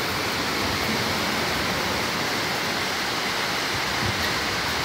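Very heavy downpour, a steady even hiss of rain.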